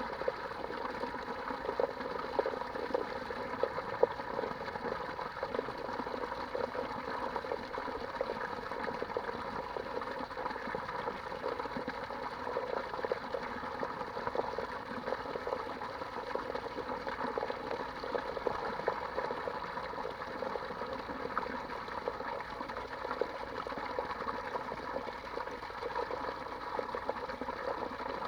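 Steady running, splashing water, even throughout.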